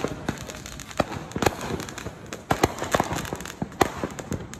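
Consumer fireworks going off: an irregular run of sharp bangs and crackling pops.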